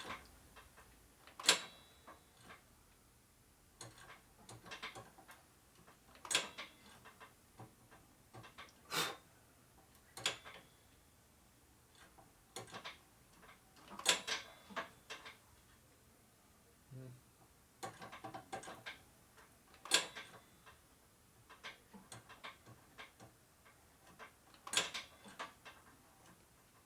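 Scattered sharp clicks and knocks, single or in short clusters a second or few apart, from hand work on a motorcycle's brake during bleeding.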